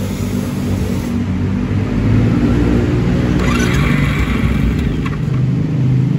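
Royal Enfield Classic 500 single-cylinder engine running through an aftermarket LeoVince exhaust, the throttle opened a little about two seconds in so the exhaust note rises and stays louder.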